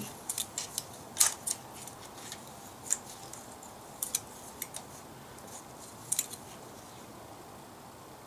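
Wrench and screwdriver clicking against a valve rocker arm's adjusting screw and jam nut while a valve's clearance is being re-set: short scattered metallic clicks in small clusters, stopping about six seconds in.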